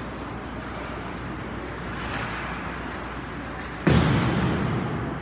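Ice rink boards struck once with a loud bang about four seconds in, its echo dying away over about a second, over steady rink noise.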